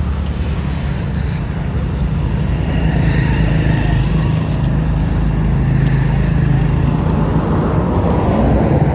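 A motor vehicle's engine running steadily as a continuous drone, growing louder toward the end.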